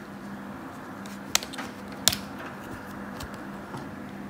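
Two sharp clicks, a little under a second apart, the second the louder, with a few faint ticks over a steady low hum.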